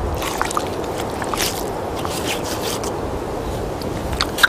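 A knife scraping and slicing through narwhal blubber in short strokes, over a steady rushing background noise. A single sharp click near the end.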